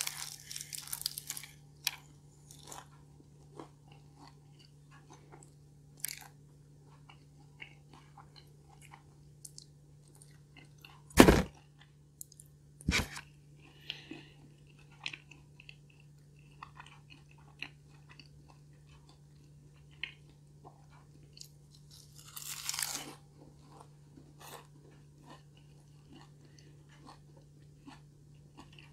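Close-up eating sounds: crunchy bites into a crispy-pastry hazelnut cream cheese tart and chewing, with a burst of crunching at the start and another a little after twenty seconds in. Two sharp knocks come about eleven and thirteen seconds in, the first the loudest sound, over a steady low hum.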